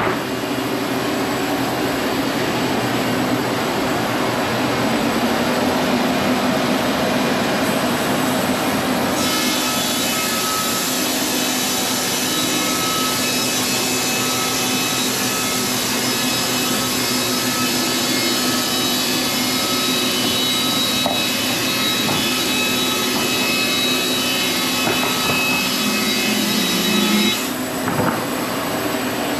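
Sawmill sawing a 100-year-old heart pine beam: a loud, steady machine run, with a brighter, higher whine from the saw from about nine seconds in that drops away near the end.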